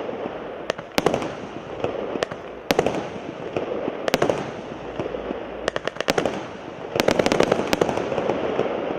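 A 36-shot, 0.8-inch consumer firework cake firing: sharp reports every second or so, in a quick cluster of several shots about six to eight seconds in, over a continuous crackling hiss.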